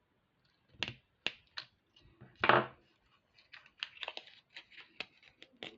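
Snips and light clicks from cutting and handling strands of beads at the work table. A few sharp clicks in the first second and a half, a louder knock about two and a half seconds in, then a quick run of small clicks.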